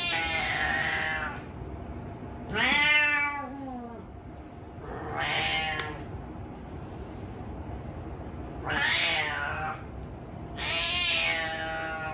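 Domestic cat meowing repeatedly: five long, drawn-out meows about two to three seconds apart, with a faint short one in between.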